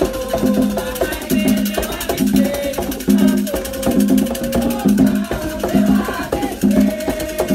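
Devotional song: voices singing over a steady drum beat.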